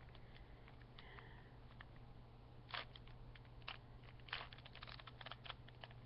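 A plastic Rubik's cube being turned by hand, giving scattered soft clicks and clacks as its layers snap round, with a quicker run of them about four to five and a half seconds in. A faint steady low hum sits underneath.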